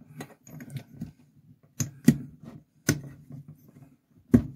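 Hands handling a 49cc Honda four-stroke moped engine's piston, wrist pin and cast cylinder on a wooden workbench: low rubbing and shuffling with about five sharp metal clicks and knocks, the loudest about two seconds in and near the end.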